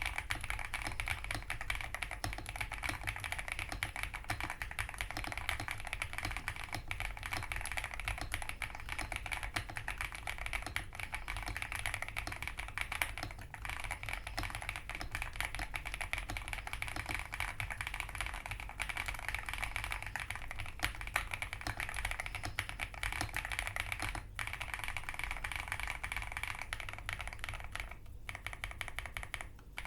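Xinmeng M87 mechanical keyboard with Xinmeng Black Plum linear switches and OEM double-shot keycaps, fully foam-dampened, being typed on quickly and continuously. A dense run of key strikes with a light, poppy, fairly thocky sound.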